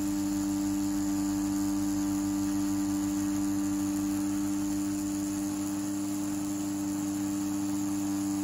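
CNC T4 rotary tattoo pen running at a steady pitch, a constant hum, while its needle pulls a single line on practice skin.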